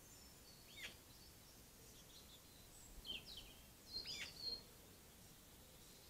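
Faint bird calls: a few short, high chirps and whistled notes that sweep down in pitch, once about a second in and in a cluster from about three to four and a half seconds in, over quiet outdoor background noise.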